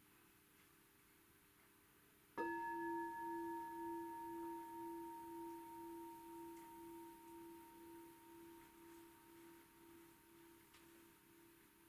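A meditation bowl bell is invited with a single strike about two seconds in, one of three bell sounds offered for the practice. It then rings on in a long, slowly fading tone, with a pulsing low note under clear higher overtones.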